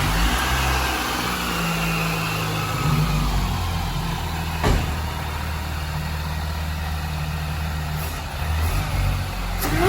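Vehicle engine running at a steady idle just after being started, with fresh oil and new spark plugs. A whine falls slowly in pitch over the first few seconds, and there is a single click about halfway through.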